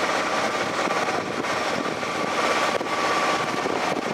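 Steady wind rush on the microphone with rolling tyre noise from a bicycle riding on a paved road.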